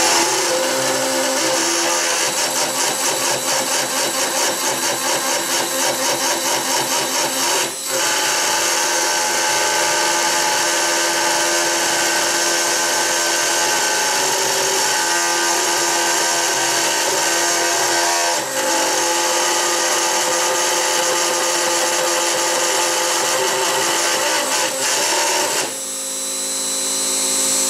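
X-Carve CNC router spindle driving an end mill through aluminium plate with heavy chatter. The bit is dancing in the groove, giving a loud, harsh cutting noise that pulses about three times a second for the first few seconds. About 26 seconds in, the cutting noise drops out suddenly as the bit snaps, leaving the spindle running free.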